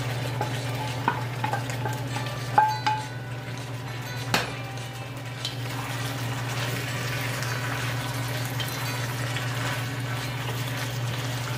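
Chicken, green beans and bell pepper sizzling in a hot metal wok as they are stirred and tossed with a wooden spatula. The spatula knocks against the wok about five times in the first few seconds, each with a short metallic ring, then the frying settles into a steady sizzle.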